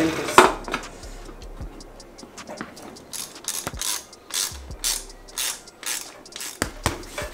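A hand wrench worked in short repeated strokes on the pivotal seat bolt under a BMX saddle, with a short mechanical rasp about twice a second from about three seconds in. A single louder knock comes right at the start.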